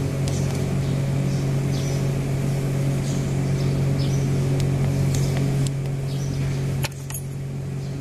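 Steady electric motor hum from a Crown RR 5700 reach truck during its fork-height calibration. Near the end it drops off with a sharp click.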